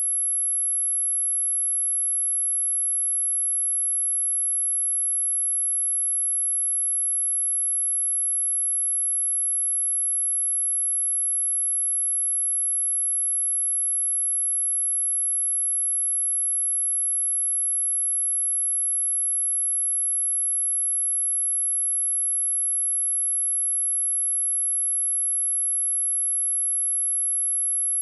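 A steady, high-pitched pure sine-wave test tone at 11,155 Hz, held unchanged at one pitch and level, as used for speaker testing and speaker cleaning.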